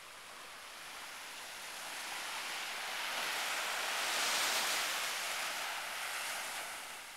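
Small ocean waves breaking and washing up a sandy beach, a hiss that swells to a peak about four seconds in and then fades.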